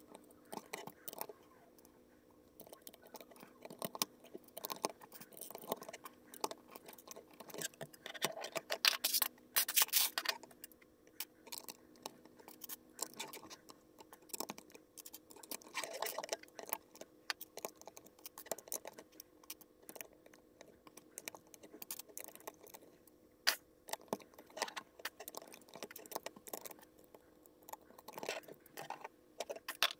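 Plastic LEGO bricks clicking and tapping as they are picked from a loose pile and pressed onto a baseplate: irregular small clicks, busiest about a third of the way in.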